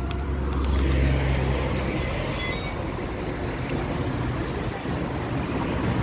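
City bus engine running close by, a low rumble that is strongest in the first two seconds, over steady street traffic noise.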